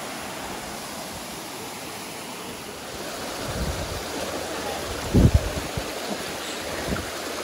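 Steady rushing of a small waterfall and creek, a continuous hiss of flowing water that grows a little louder about three seconds in. About five seconds in there is a brief low thump.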